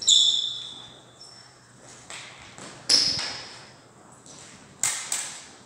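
Steel smallsword blades clinking against each other in a fencing bout, each contact a sharp metallic ping that rings and fades. There is a loud clash at the start, fainter touches after it, and two quick clashes near the end.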